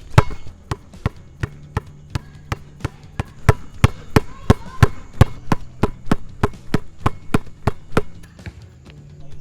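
Basketballs being dribbled on a hard court, a rapid, fairly regular run of sharp bounces about three a second.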